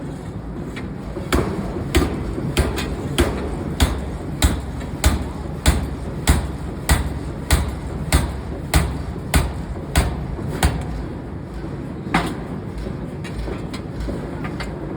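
Forging hammer striking metal in a steady rhythm, about one and a half blows a second for roughly nine seconds, then a single blow, over a constant din of factory machinery.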